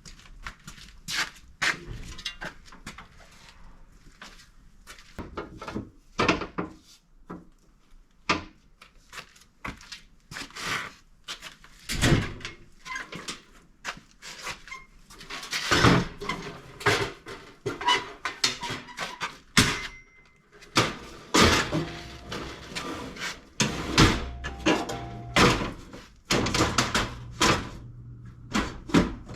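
Irregular knocks, clanks and rattles of hands working with tools and metal parts, some sharp and loud, with a faint low hum under the second half.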